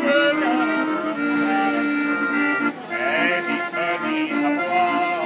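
Hand-cranked barrel organ playing a tune, with reedy held notes over a sustained low note.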